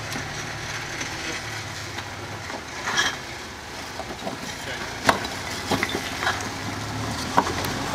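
An off-road rock crawler's engine running steadily at low revs while the vehicle climbs over rocks, with a handful of sharp cracks and scrapes from tyres and underbody on rock, the loudest about five seconds in and near the end.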